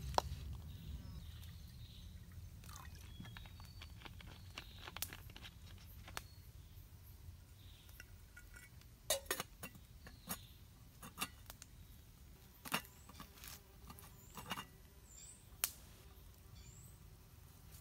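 Sparse clinks and knocks of stainless steel camp cookware being handled and set down by a campfire: a lid, a cup and a kettle hung over the fire.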